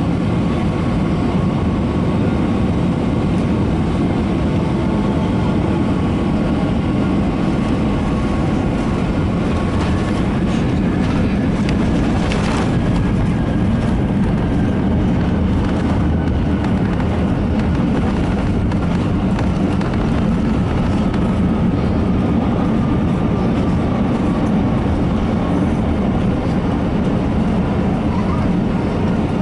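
Steady, loud cabin noise in an Airbus A320 rolling along the ground after landing: the rumble of its IAE V2500 engines and wheels, with a faint engine whine slowly falling in pitch. A brief hiss about twelve seconds in.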